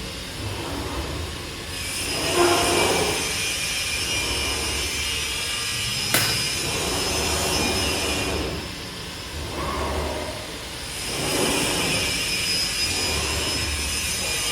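Woodworking CNC router running: a steady high whine with hiss that comes and goes, repeated swelling motor sounds every couple of seconds as the machine moves, and one sharp click about six seconds in.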